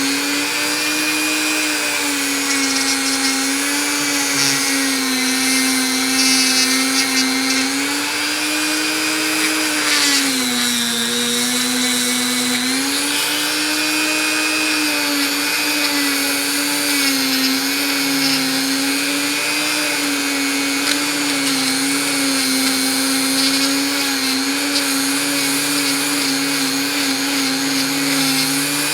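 Dremel rotary tool running steadily at high speed with a continuous whine. About ten seconds in, the pitch sags for a couple of seconds and then recovers, as the tool slows while pressed against the work.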